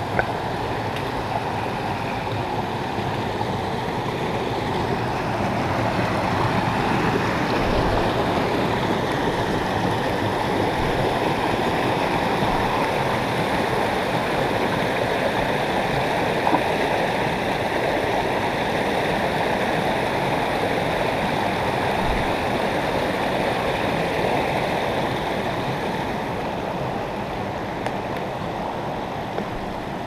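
Small rocky stream running and gurgling over stones and little cascades, a steady sound of rushing water that grows louder in the middle and eases off slightly near the end.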